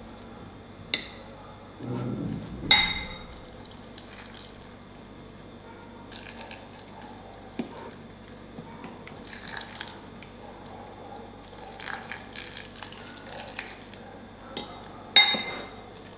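A metal fork stirring food in a glass bowl, with sharp clinks of fork on glass, the loudest about three seconds in and near the end. Hot water from a collapsible travel kettle is poured and trickles into the bowl.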